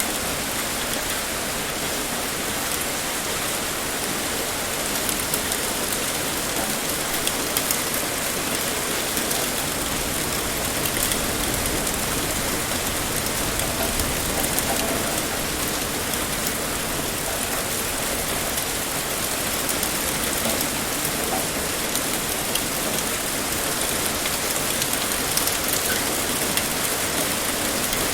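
Heavy rain pouring steadily, a dense even hiss with scattered drop ticks on a surface.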